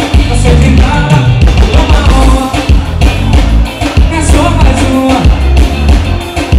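Live forró band playing at full volume: electric guitars, keyboard and drum kit over a heavy, steady low beat, with a male singer's voice at times.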